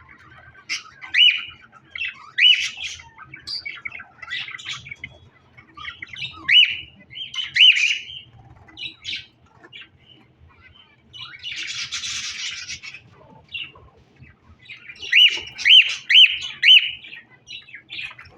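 A flock of aviary ornamental birds calling: short squawks and chirps, many with a quick rising hook, overlapping in bursts. About the middle comes one harsher, rasping noise lasting a second or two.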